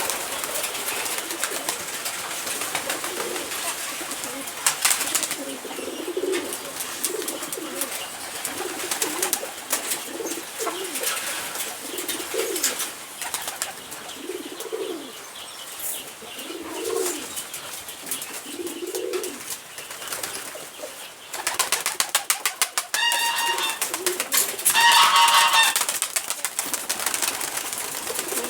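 Poultry calling with repeated low, coo-like calls. About three-quarters of the way in comes a flurry of rapid clicks, followed by two higher-pitched calls near the end.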